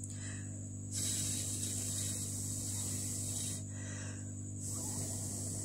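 Hiss of a cooling blast directed at a freshly heated IC on a phone circuit board, cooling it before power-on. It comes in two goes: one starting about a second in and stopping after about two and a half seconds, the second starting about a second later, over a steady electrical hum.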